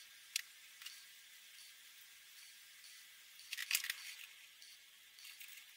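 Winsor & Newton Promarker alcohol marker dabbing and scratching on paper: a faint hiss with light ticks. A denser cluster of clicks comes about three and a half seconds in, the loudest part.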